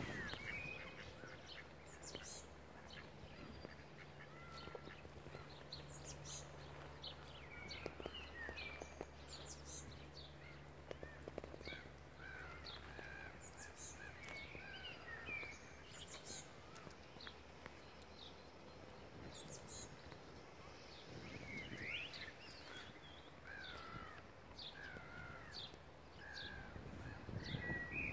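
Birdsong outdoors: many short chirps and whistles from several small birds, scattered throughout, with a faint low steady hum in the background during the first half.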